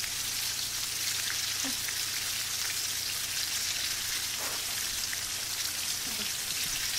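Batter-coated chicken nuggets deep-frying in oil, a steady sizzle; the pieces are golden brown and done.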